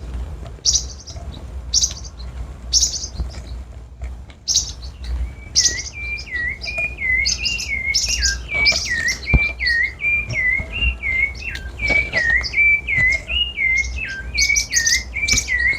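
Songbirds chirping and singing, among them a rufous-bellied thrush (sabiá). Short high chirps come throughout, and from about five seconds in a steady run of repeated whistled notes joins them.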